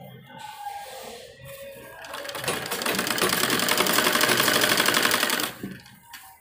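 Sewing machine stitching a second line along a sleeve seam: quieter at first, then running fast and even for about three seconds before stopping shortly before the end.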